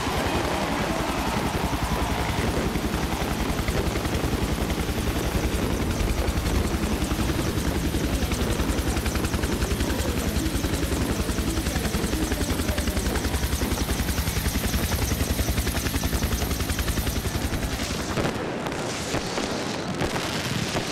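Helicopter rotor noise, a fast, steady chopping, heard from aboard the aircraft carrying the aerial camera. It drops away about eighteen seconds in.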